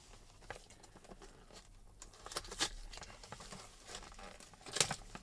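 An HDMI lead being handled: faint rustling and light clicks, with a sharper click a little before three seconds in and another near the end.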